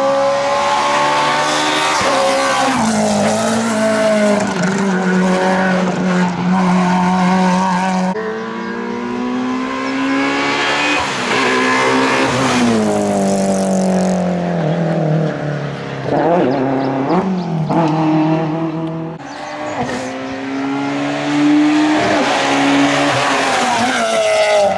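Rally car engines revving hard up a tarmac stage, one car after another, the pitch climbing and then dropping again as the engines change gear.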